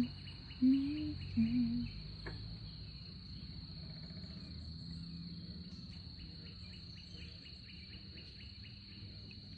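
Insects shrilling in a steady, unbroken high drone. A couple of short low hums near the start are the loudest sounds.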